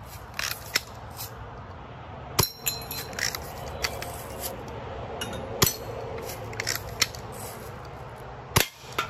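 Air-gun target shooting: about ten sharp, irregularly spaced cracks of BB or airsoft shots and hits on targets. The hit about two and a half seconds in is followed by a brief metallic ring.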